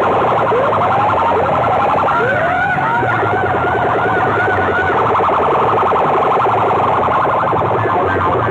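Horn loudspeakers of a village sound-system rig blasting a loud siren-like sound effect: rising whooping sweeps, one after another, over a fast pulsing beat.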